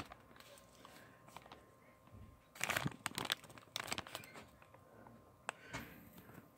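Sealed plastic McDonald's toy bag crinkling as it is handled, in faint scattered crackles, loudest for a second or so about halfway through.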